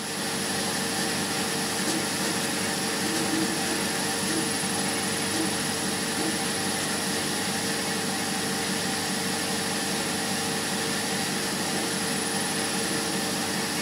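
Steady machinery noise of a juice-processing pilot line: an even rushing hiss with a few steady hum tones underneath, fading in at the start.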